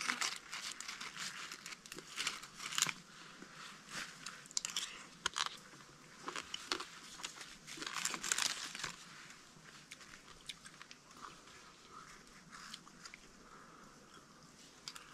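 Banana leaves crinkling and rustling as a leaf-wrapped food packet is unfolded by hand, mixed with chewing; the rustles come thick and fast for the first several seconds, then thin out.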